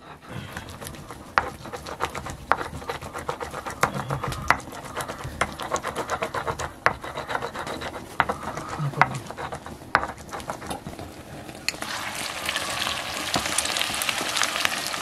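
A utensil scraping and knocking in a metal cooking pan, with irregular sharp clicks. About twelve seconds in, a loud, steady frying sizzle starts suddenly, as food hits hot oil.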